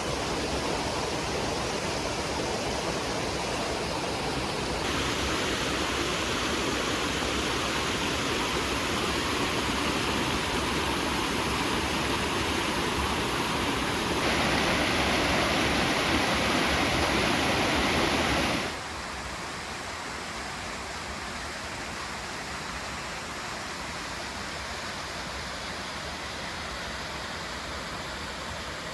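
Waterfall of snowmelt-fed Hunter Creek: a steady rush of falling water. Its loudness jumps abruptly a few times, and it is loudest a little past the middle before dropping to a quieter rush.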